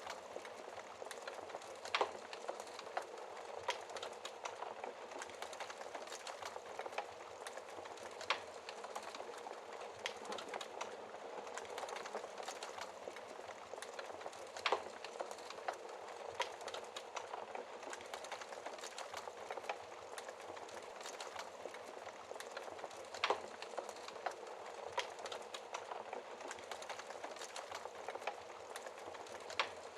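Wood fire crackling in a fireplace: a constant fine crackle with a louder sharp pop every few seconds.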